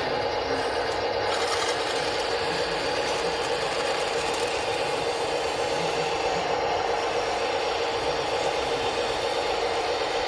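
Small electric drive motors and gearboxes of a radio-controlled scale skid steer loader running steadily with a constant whine.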